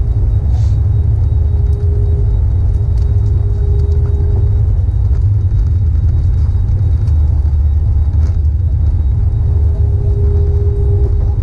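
Cabin noise inside an Airbus A321neo rolling slowly on the ground after landing: a steady deep rumble with an engine hum that swells twice.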